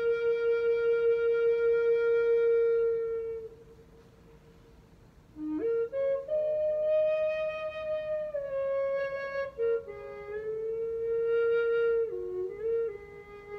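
Solo E-flat end-blown flute of Atlantic white cedar playing a slow melody: a long held low note with a pulsing waver, a pause of about two seconds, then a phrase that scoops up to higher notes and steps back down to settle on the low note.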